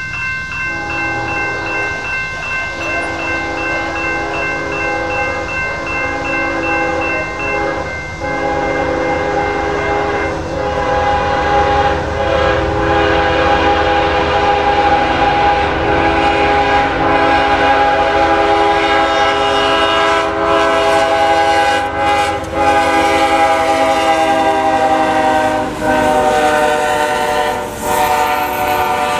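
Railroad crossing's General Signals electronic bell ringing at first, while the lead Norfolk Southern ES44DC locomotive approaches sounding its air horn in several long blasts with short breaks, growing louder. Near the end the horn's pitch drops as the locomotives pass the crossing.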